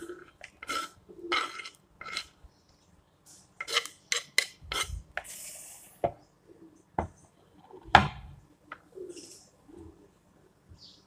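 Wooden chopping board and knife scraping and knocking as chopped onion is tipped into a plastic bowl, with scattered clatters of kitchenware and one loud knock about eight seconds in.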